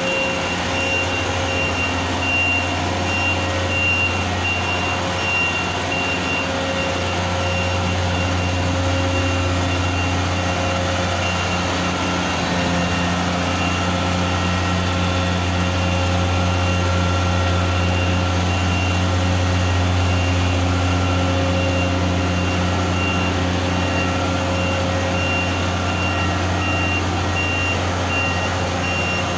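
Atlas Copco FlexiROC surface drill rig running steadily with a deep, even engine drone, while a high-pitched warning beeper sounds over and over.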